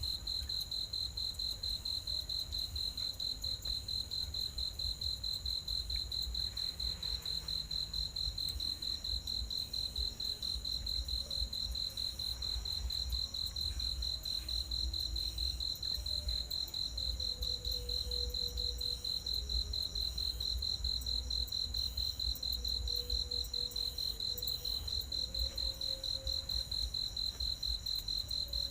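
A cricket chirping without pause: one high-pitched trill that pulses rapidly, over a low hum.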